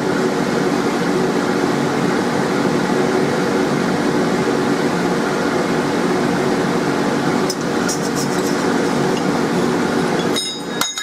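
Steady mechanical hum of a fan or blower motor, with a few light metallic clinks of steel pieces being handled on the anvil about two-thirds of the way through and again near the end.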